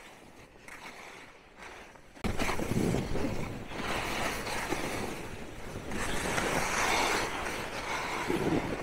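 Skis sliding and scraping over packed snow with air rushing over the microphone as the skier runs downhill. Fairly quiet for about the first two seconds, then the rushing noise comes in suddenly and keeps going, rising and falling.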